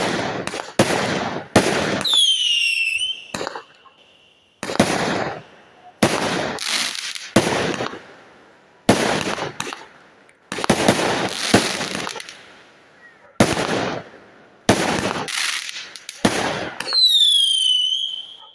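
Fireworks going off in irregular succession, a dozen or so sharp bangs each trailing off over about a second. Twice, a high whistle glides down in pitch and then holds briefly.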